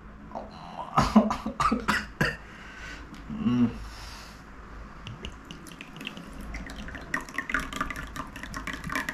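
Thick green kochchi chilli sauce glugging and spattering out of a glass bottle into a glass bowl, a dense run of small wet clicks in the last couple of seconds. Earlier there are a few sharp clicks from handling the bottle, and a short hum of a voice about three and a half seconds in.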